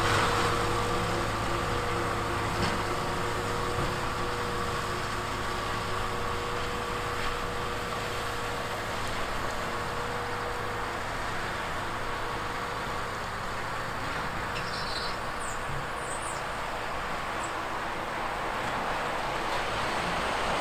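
Volvo EWR150E rail-road wheel excavator's diesel engine running steadily while it works, with a steady whine over the engine noise. It grows a little louder near the end.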